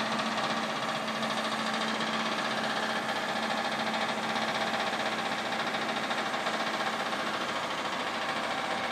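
Truck-mounted crane's engine idling steadily, a constant hum that holds the same speed throughout.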